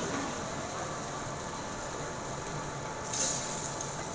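Steady hiss of food cooking on a stove, with one brief, louder burst of hiss about three seconds in.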